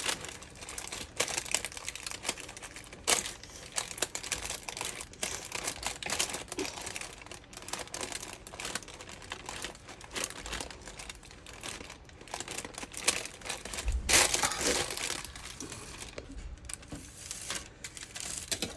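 Wax paper crinkling and rustling as a spoon presses a sticky fruit cake mixture into a paper-lined box, with irregular scrapes and ticks; a louder burst of crinkling comes about fourteen seconds in.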